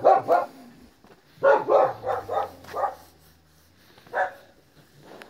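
A dog barking in short runs: a few barks at the start, a quick series of about five around the middle, and a single bark near the end.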